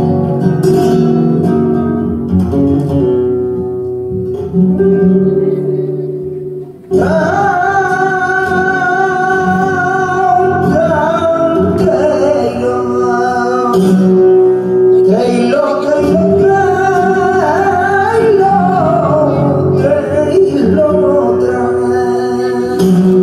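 Flamenco farruca on acoustic guitar. About seven seconds in, a singer enters with a long, wavering, ornamented sung line over the guitar. Near the end the singing stops and the guitar carries on alone.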